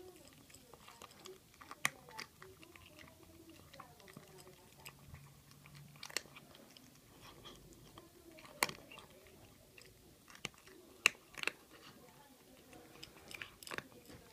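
Cat eating dry kibble from a bowl: sharp, irregular crunches every second or two as it bites and chews the pieces.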